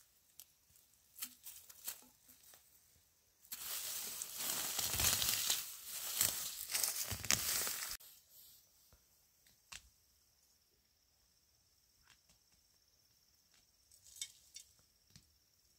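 Leafy vegetation rustling and tearing for about four seconds, with scattered light snaps and clicks before and after.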